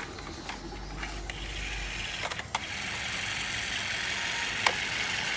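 A small mechanism spins the bowl's mixture with a steady rattling whir that builds about two seconds in, with a couple of sharp clicks.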